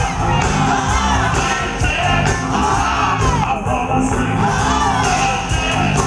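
Live soul/R&B band playing with a steady bass and drum beat while a male lead vocalist sings, heard from the audience through a concert PA.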